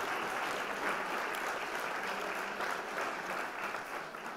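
Crowd applauding, a dense patter of many hands clapping that thins and fades out near the end.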